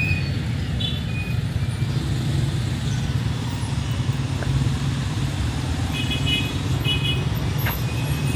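City street traffic: a steady low rumble of passing cars, with a few brief high-pitched beeps about a second in and again near the end.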